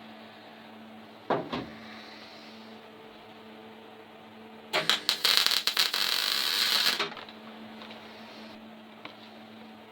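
Electric welder arcing on thin car-body sheet steel for about two seconds in the middle, a loud crackling hiss, with the welder turned up high enough to burn through the panel. A steady hum runs underneath, and there is a short sharp knock about a second and a half in.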